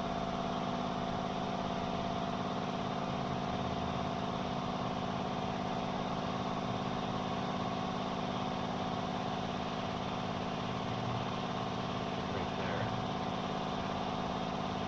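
Steady machinery hum with a few fixed droning tones, unchanging throughout, the background noise of a factory workshop.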